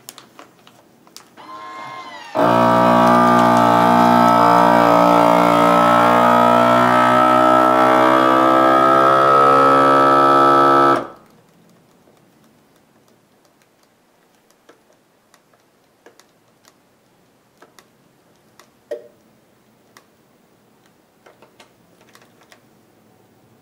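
Food Saver benchtop vacuum sealer's pump motor running with a steady, even hum for about eight and a half seconds, evacuating the bag, then cutting off abruptly with the bag drawn down tight. Faint clicks of handling follow.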